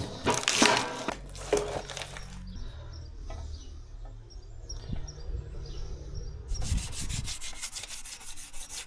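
Hand scrubbing: an abrasive Jex pad rubbed in quick, even strokes over the aluminium sealing face of a 0B5 gearbox housing, cleaning off oxidation before the new strainer goes on. Scattered wiping strokes come first, then a quieter stretch with a low steady hum, and the steady scrubbing starts about two-thirds of the way through.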